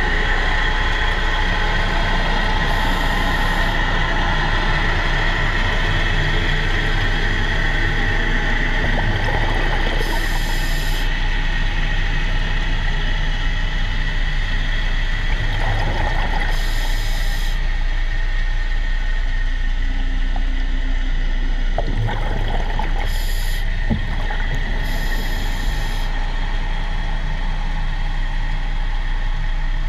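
Underwater recording during propeller polishing: a steady machine hum with a constant high whine, broken every few seconds by short hissing bursts.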